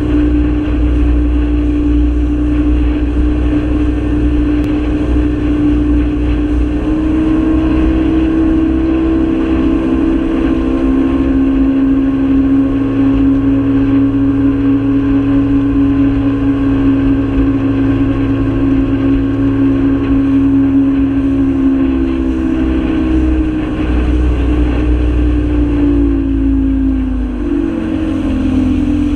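Fishing boat's motor running steadily at planing speed, with a low rush of wind and water along the hull. The engine note drops slightly about a third of the way in, then wavers and shifts near the end.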